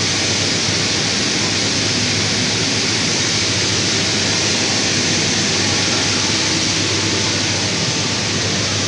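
Steady machinery noise: an even hiss with a low hum underneath, holding level with no strokes or cuts.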